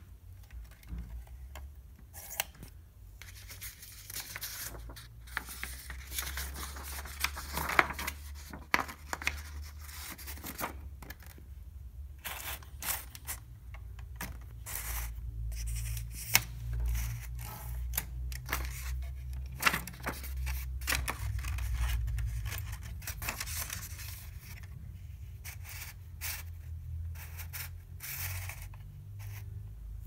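Paper being fed into an Olympia SM2 portable typewriter: the sheet rustles and scrapes as it slides around the platen, with scattered clicks and snaps as the paper bail and carriage are handled.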